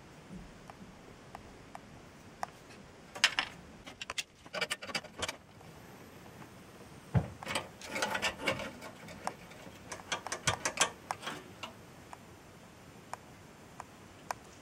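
Sharp clicks and clattering of small hard parts being handled, in two busy spells separated by a pause, with scattered single clicks in between.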